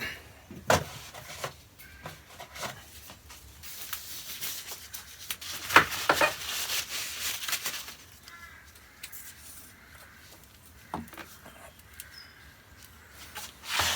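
A few handling clicks and knocks, then a WD-40 aerosol can spraying, a hiss lasting about four seconds in the middle, to loosen a seized adjustable pole joint. A few sparse knocks follow.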